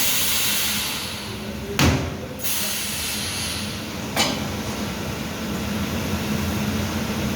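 Multi-spot mesh welding machine running with a steady hum and hiss, punctuated by two sharp strokes from the machine, one about two seconds in and another a little after four seconds.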